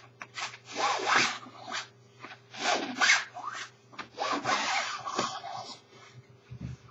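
A ruler or stick scraped up and down over the nylon shell of a padded winter jacket, giving a series of uneven rasping strokes that stop near the end; the shell fabric is being tested for rustle and tear resistance.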